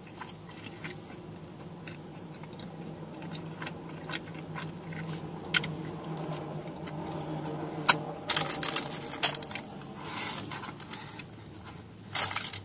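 Close-up chewing and biting of a soft taco, with scattered crunchy clicks that bunch up between about eight and nine seconds in and again near the end, over a steady low hum.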